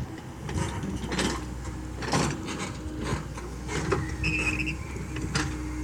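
Komatsu PC70-8 excavator running steadily, with a series of sharp knocks and clanks spread through the sound.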